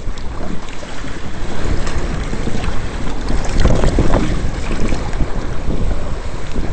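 Wind buffeting the microphone and choppy water splashing and rushing against the hulls of a Hobie Adventure Island sailing trimaran under way, with a louder surge of spray about four seconds in.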